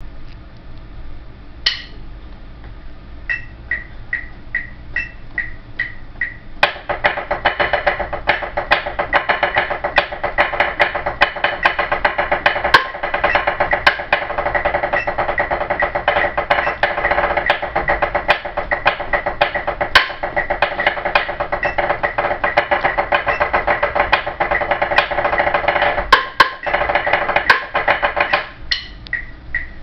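Drumsticks on a practice pad playing the "Yoda flams" flam rudiment. A single stroke comes first, then a run of slow, evenly spaced strokes. About a quarter of the way in, a long passage of fast, dense strokes with accents begins, and it thins to a few single strokes near the end.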